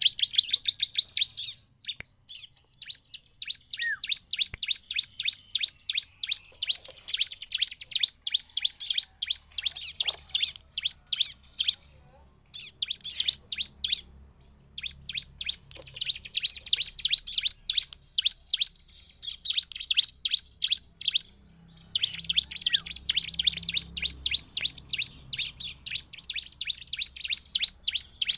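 Bar-winged prinia (ciblek) singing hard: long runs of rapid, sharp, high chipping notes, broken by a few short pauses.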